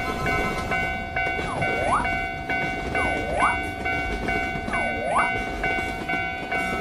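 Railroad crossing signal ringing in a steady, quick repeating pattern over the rumble of a train. Three times a whistle-like swoop falls and then rises in pitch.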